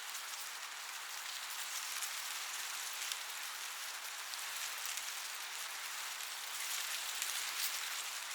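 Wind blowing through a cornfield: a steady hiss of rustling corn leaves with fine crackles, swelling a little near the end.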